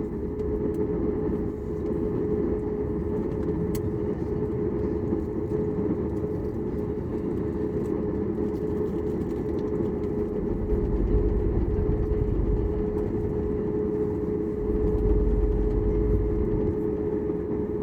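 Cabin noise of a Boeing 737 MAX 8 airliner taxiing after landing: a steady hum with one held tone over a low rumble. The low rumble swells twice in the second half.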